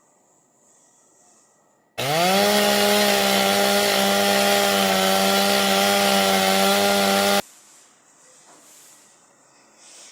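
A loud motor starts suddenly about two seconds in, its pitch rising quickly to a steady buzz that holds for about five seconds, then cuts off abruptly.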